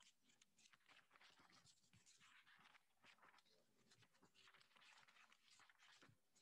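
Near silence, with the faint scratching of a pen writing on paper in small irregular strokes.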